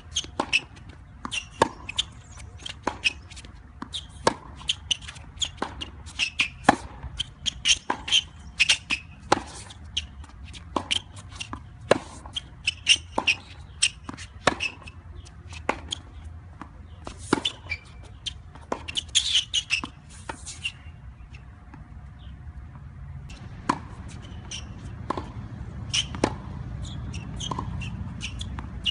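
Tennis rally on a hard court: sharp pops of the ball coming off racket strings and bouncing on the court, several a second, mixed with shoe steps. The hitting pauses for about two seconds about three-quarters of the way through, then picks up again.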